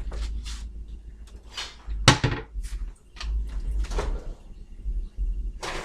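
Oven door being opened and a baking tray handled: a string of knocks and clunks, the loudest about two seconds in.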